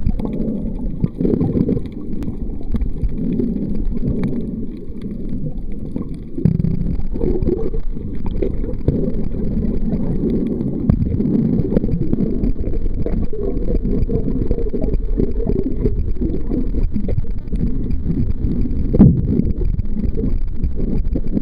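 Muffled underwater rumble of churning, surging sea water, heard through a submerged camera's waterproof housing, with a few knocks and one sharper knock near the end.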